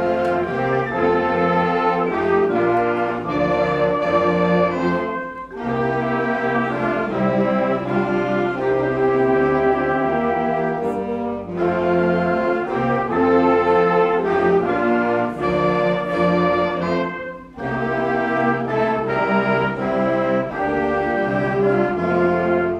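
Brass-led instrumental music, playing in phrases that break off briefly about every six seconds.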